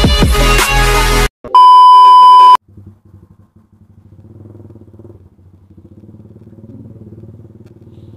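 Electronic intro music cuts off about a second in. A loud, steady electronic beep lasting about a second follows. After it a motorcycle engine runs steadily and much more quietly while riding.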